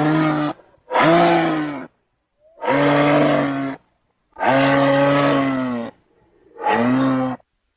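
Five separate low lowing bellows from a made-up elk creature sound effect built from moose, bull and camel recordings. Each call lasts about a second and bends slightly in pitch, with short silences between them.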